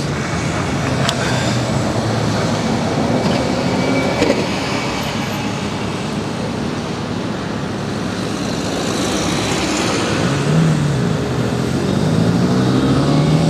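City road traffic: cars and buses running through a junction, with an engine note rising in pitch as a vehicle accelerates away near the end.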